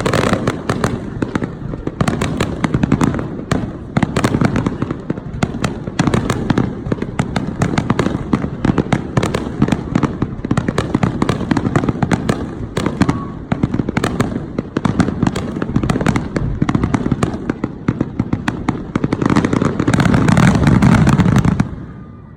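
Fireworks display: a dense, unbroken barrage of booming shell bursts and sharp cracks. It grows loudest near the end, then drops away abruptly.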